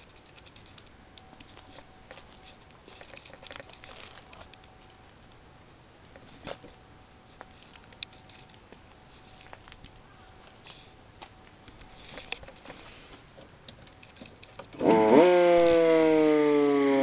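Faint handling clicks, then about two seconds before the end a siren switches on loudly, its pitch jumping up and then sliding slowly down in a wail.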